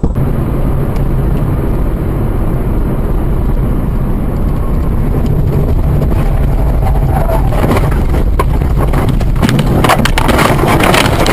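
Car on the move: steady engine and road rumble. In the last couple of seconds it is joined by a run of sharp knocks and rattles.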